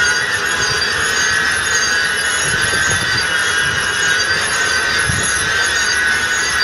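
Case IH Magnum 380 RowTrac half-track tractor driving slowly, with a loud, high, wavering squeal over a rough low rumble.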